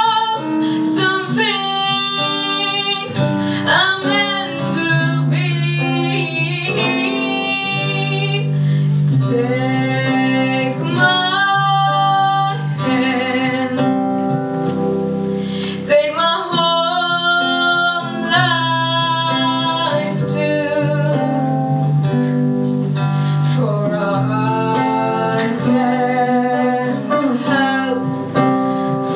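A woman singing a song solo into a microphone, holding long notes with vibrato, over instrumental accompaniment.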